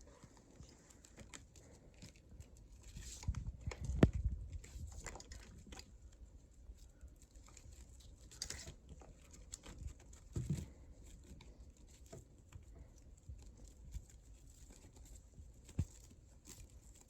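Tape being wrapped around a twisted wire splice by hand: soft crinkling and tearing sounds with scattered small clicks, and low handling thumps about four seconds in and again near the middle.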